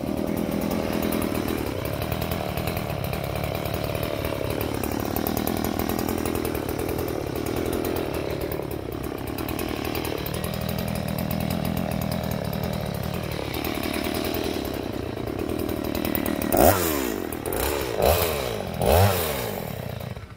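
Stihl two-stroke chainsaw cutting into an oil palm trunk, its engine note sagging and recovering as the chain bites and eases. Near the end it is revved up three times in quick bursts, then falls away.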